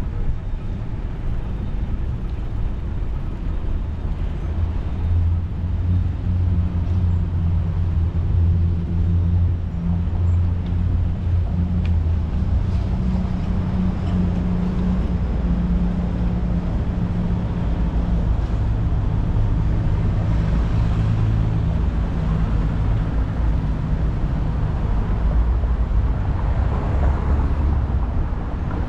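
Low, continuous rumble from a camera on a moving bicycle: tyres rolling over paving stones and wind on the microphone. A low droning hum is strongest from about five to fourteen seconds in.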